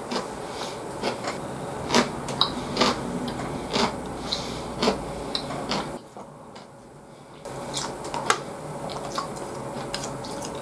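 Close-up eating sounds from a man eating a beef bowl: chewing and mouth noises, with irregular sharp clicks of chopsticks and containers. The sounds drop away briefly about six seconds in, then the clicking and handling resume as green onions are tipped from a plastic cup onto the bowl.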